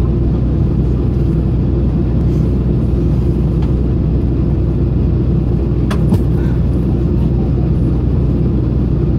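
Steady low rumble of a Boeing 737-800's CFM56 engines at taxi thrust, heard inside the cabin as the airliner taxis onto the runway. A brief click about six seconds in.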